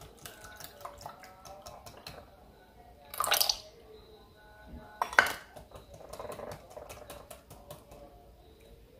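Whisk or spoon clicking against a mixing bowl while batter of eggs, milk and sugar is stirred to dissolve the sugar. There is a louder clatter about three seconds in and a sharp clink about five seconds in.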